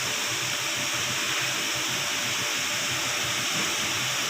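Steady hiss at an even level, with no clicks or tones in it.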